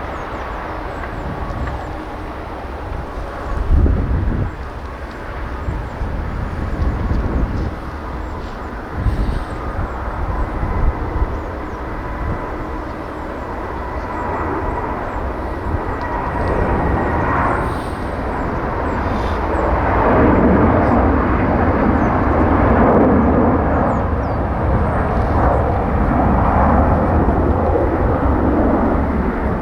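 Jet airliner's engines at takeoff power, a broad rumbling noise that builds about halfway through and stays loud. Gusty wind buffets the microphone with low thumps, strongest early on.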